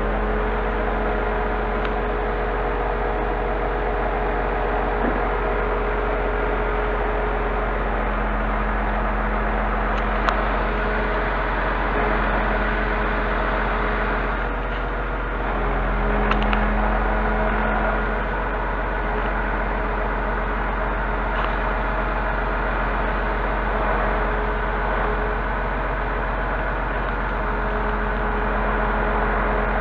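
Scania crane truck's diesel engine running steadily, a low hum that powers the loader crane's hydraulics, growing a little louder for a couple of seconds about halfway through.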